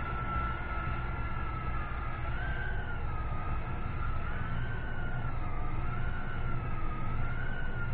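Blade Inductrix tiny whoop micro quadcopter hovering, its 6 mm brushed motors giving a high whine that wavers up and down in pitch as the throttle is worked.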